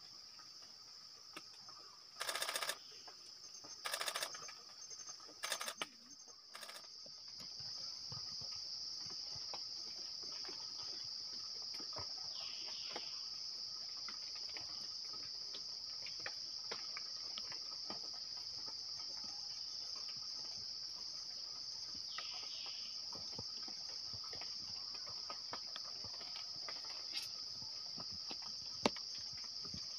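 Steady high-pitched drone of a rainforest insect chorus, louder from about seven seconds in. In the first seven seconds it is broken by four short, loud, noisy bursts.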